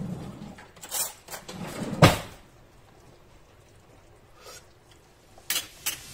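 Kitchen cupboard and cookware handling: a stainless steel pot lid being taken out among a few knocks and clatters. The loudest is a sharp knock about two seconds in, followed by two light clicks near the end.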